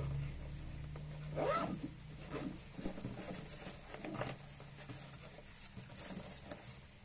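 Rustling and scraping of a black nylon waist bag being handled, turned over and folded, in several short bursts. A low steady hum fades out about a second and a half in.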